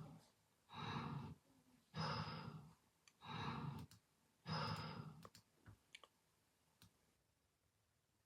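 A sleeping person snoring: four noisy breaths about a second apart, then quiet with a few faint clicks.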